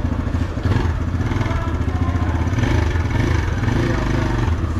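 TVS Raider 125's single-cylinder engine running steadily at low revs, with an even, rapid exhaust pulse.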